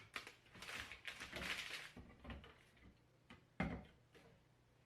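Plastic ink bottles and their packaging being handled while unpacked: rustling for a second or two, then a single knock a little past halfway through as something is set down.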